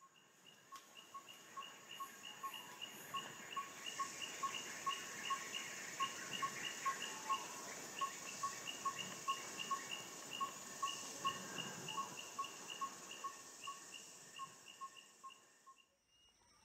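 Congo rainforest ambience: a steady high insect hiss, with a clear short note repeated evenly about three times a second. It fades out shortly before the end.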